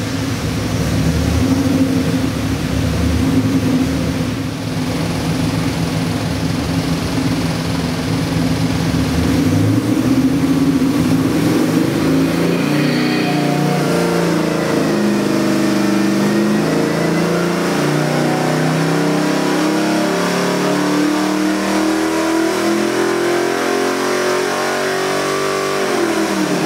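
Ford 7.3L Godzilla V8 crate engine running on an engine dyno. It holds a steady speed for about ten seconds, then revs rise steadily under load through a full-power pull for about fifteen seconds, and the engine drops off sharply near the end.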